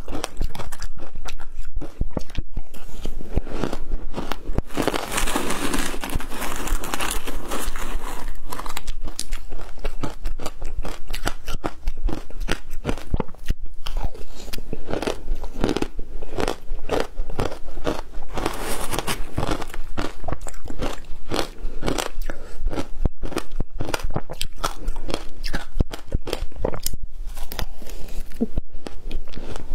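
Shaved ice being crunched and chewed: a dense, continuous run of crisp crunches.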